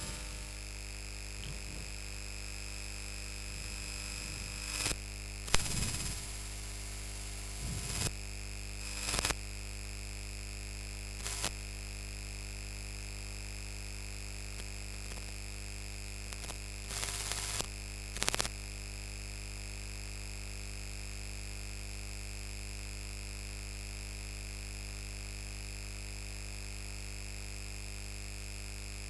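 Marker pen strokes on a whiteboard: about seven short scraping strokes in the first two-thirds as lines are drawn, then they stop. A steady electrical hum with a high whine underlies them.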